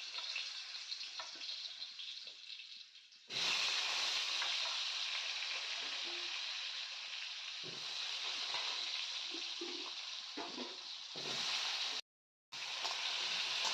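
Food frying in a pan: a steady sizzling hiss with a few small knocks. It jumps louder abruptly about three seconds in and drops out briefly near the end.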